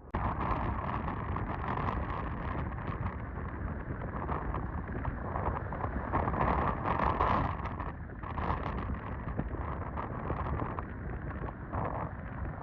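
Strong blizzard wind gusting across the microphone, a heavy rushing noise that swells and eases, loudest a little past the middle.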